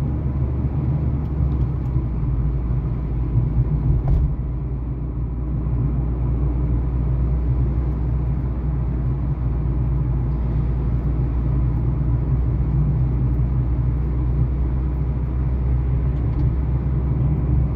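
Road and engine noise heard inside a moving car's cabin: a steady low rumble, with a short knock about four seconds in.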